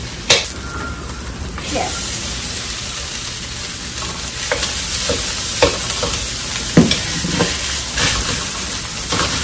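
Cooked rice going into a hot steel wok of sautéed spice paste, frying with a steady sizzle that grows louder about a second and a half in. A sharp knock comes near the start, and later a metal spatula scrapes and knocks against the wok several times as the fried rice is stirred.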